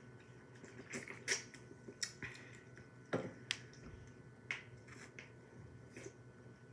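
Soda being drunk from aluminium cans: a scattering of short, quiet gulps, slurps and clicks from swallowing and the can at the lips.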